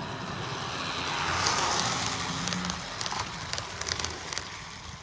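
AHM FP45 model locomotive and its train of cars rolling past close by: a steady rolling rush of motor and wheels that swells about a second and a half in and then fades, with a run of quick clicks from the wheels on the track as the cars go by.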